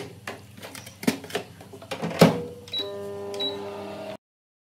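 Homage microwave oven: a few clicks and knocks, then two short high beeps from its keypad, and it starts running with a steady hum. The sound cuts off suddenly near the end.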